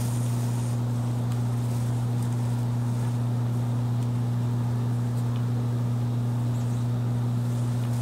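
Steady low electrical hum with a faint hiss, even throughout; no distinct screwdriver or handling sounds stand out.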